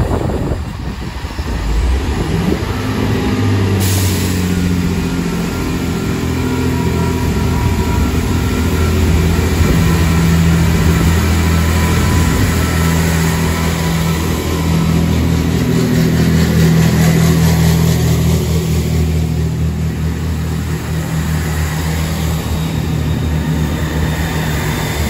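Two coupled Class 165 Networker diesel multiple units pulling away, their underfloor Perkins diesel engines running under power with a steady low drone as the carriages pass close by.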